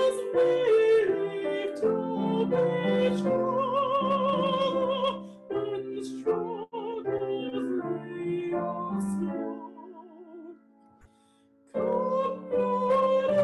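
A woman singing in a classical style with a wide vibrato on her held notes. Near the end there is a pause of about a second and a half before she comes back in.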